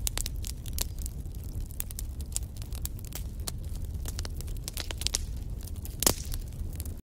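Wood fire crackling in a fireplace: a steady low rumble of burning logs with frequent sharp pops and snaps, and one louder pop about six seconds in.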